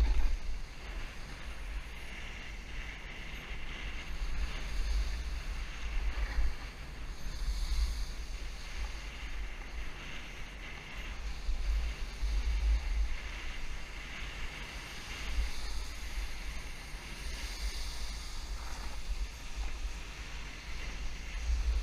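Wind buffeting the microphone of a camera worn by a snowboarder riding downhill, a heavy gusting rumble, with the hiss and scrape of the snowboard sliding on packed snow swelling and fading through the turns.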